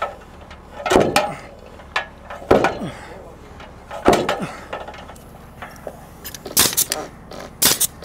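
Sledgehammer blows on a heavy timber beam, three strikes about a second and a half apart, each with a short ringing after it, driving the beam into a tight notch in a post. Near the end come two sharp shots of a pneumatic framing nailer.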